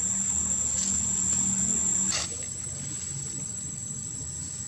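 Steady high-pitched insect trill with a low hum under it. About two seconds in, the sound changes abruptly and gets quieter, like an edit.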